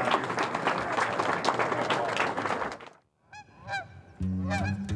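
Nearly three seconds of loud, dense noise cut off suddenly, then a goose honks repeatedly in flight, with low music notes coming in about a second before the end.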